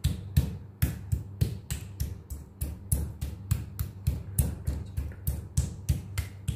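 Metal meat tenderizer mallet striking thin raw chicken breast slices on a wooden cutting board, light, even blows about three or four a second, pounding the meat soft.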